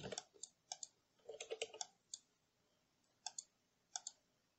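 Computer keyboard and mouse clicks: a few single clicks, a quick run of keystrokes about a second and a half in, then two separate clicks with quiet between them.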